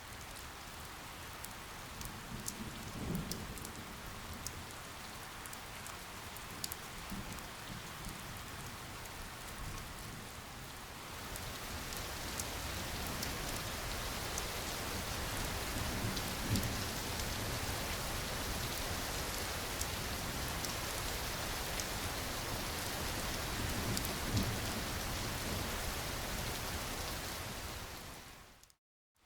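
Rain falling steadily, with scattered sharp drop ticks and a few soft low rumbles. It gets a little heavier about eleven seconds in.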